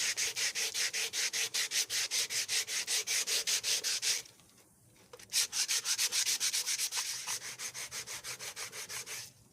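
Sandpaper rubbed quickly back and forth by hand over a painted carbon-fiber car side mirror cover, taking off the blue paint, at about seven strokes a second. The strokes stop for about a second midway, then resume until near the end.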